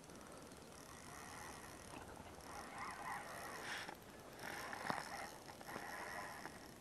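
Spinning reel being cranked to retrieve a lure: a faint, steady whirr of the rotor and gears.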